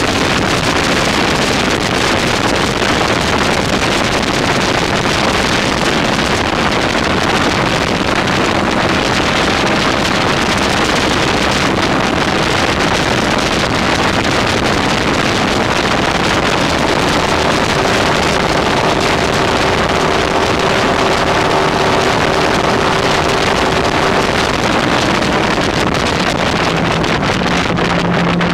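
Inboard V8 engine of a wooden runabout boat running steadily under way, with heavy wind buffeting the microphone.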